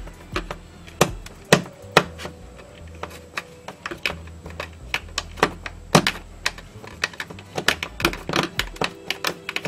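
Screwdriver turning a small screw into a wire terminal in a plastic radio case: a run of sharp, irregular clicks and ticks.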